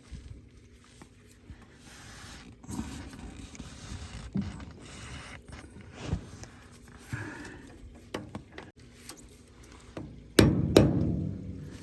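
Screwdriver scraping and prying at the metal keeper tabs on steering gear box bolts, with scattered metallic clicks and knocks, then two loud metal strikes near the end.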